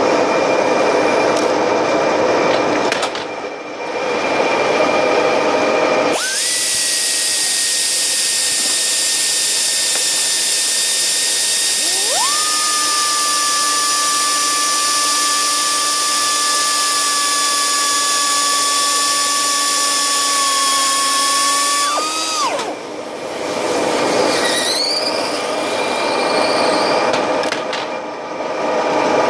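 CNC lathe running through a turning cycle: a steady high-pitched whine starts about six seconds in, a second, lower whine joins it about halfway, and both stop abruptly together a few seconds later, with rougher machine noise before and after.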